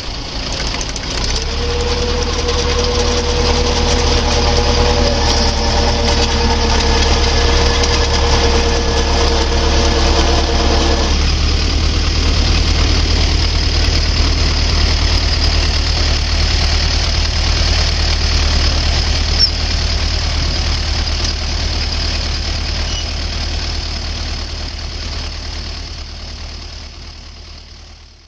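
Tractor engine running steadily, driving a PTO-mounted post-hole auger that bores into soil. A steady whining tone runs along with it and stops about eleven seconds in. The sound fades out near the end.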